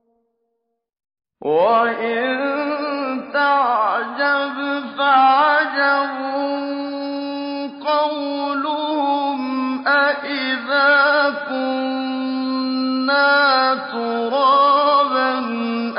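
A man's solo voice reciting the Qur'an in a melodic, drawn-out chant, with long held notes and ornamented turns of pitch. It comes in about a second and a half in, after a brief silence.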